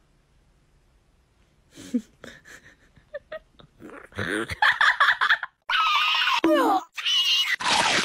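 Near silence for about two seconds, then a cat meowing with rising and falling pitch, mixed with a person's loud laughter from about four seconds in.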